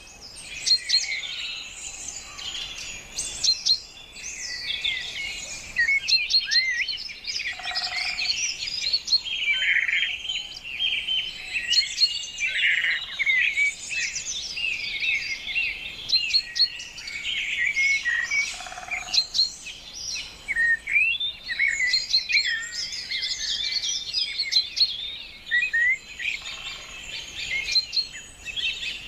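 A dense chorus of many small birds chirping and singing at once, short notes and whistles overlapping without a break.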